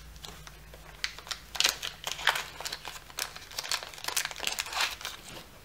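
Small blue plastic pouch being pulled open by hand: irregular crinkling and tearing crackles, starting about a second in.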